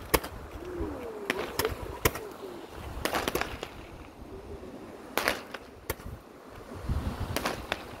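Fireworks going off: about ten separate sharp bangs and cracks, unevenly spaced, over a steady low rumble of surf.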